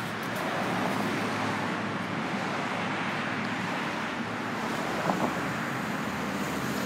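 Steady noise of street traffic, with two brief sharp sounds a little after five seconds in.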